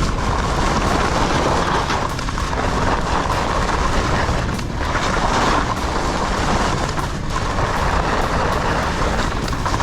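Icelantic Nomad 95 skis scraping over packed snow at speed, with wind rushing over the microphone. The noise dips briefly every couple of seconds, in rhythm with the turns.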